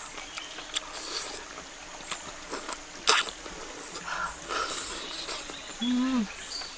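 A person eating spicy chicken: chewing, lip smacks and sharp breaths through pursed lips against the heat, the sharpest about three seconds in, then a short hummed "mm" near the end.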